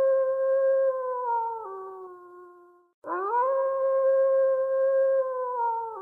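A long howl that swoops up, holds a steady pitch, then sags and drops away. A second identical howl starts about three seconds in, as if looped.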